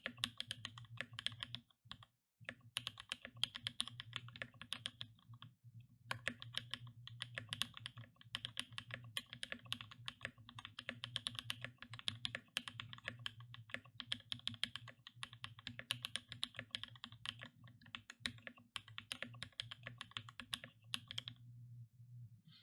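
Fast typing on a Boardsource Mark 65 custom mechanical keyboard with lubed Durock All POM linear switches in an FR4 plate and GMK keycaps: a dense run of keystrokes with short pauses about two and five and a half seconds in, stopping about a second before the end.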